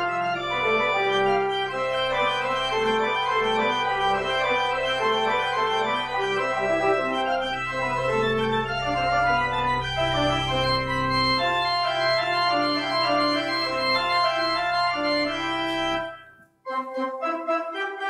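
Church organ playing sustained chords over a held low pedal note. It breaks off briefly near the end, then starts again.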